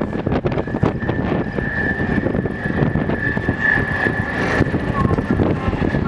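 Wheeled armoured vehicle on the move, heard from its roof: continuous engine and running noise with constant rattling and a steady high whine.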